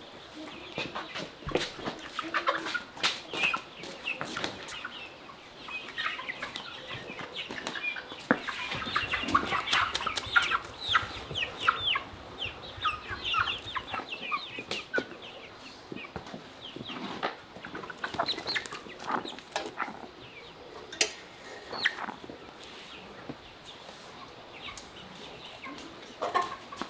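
Chickens clucking in a woven bamboo cage, most thickly in the middle, with scattered sharp knocks.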